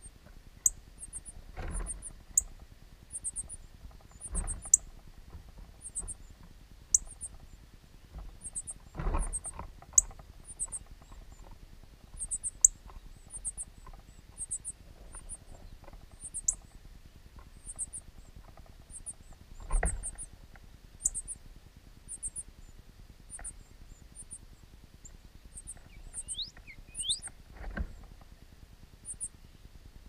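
Songbird nestlings calling from the nest with thin, very high-pitched squeaky chirps in short clusters, repeated about once or twice a second, a few sharper falling chirps among them. About five dull low thumps break in at intervals.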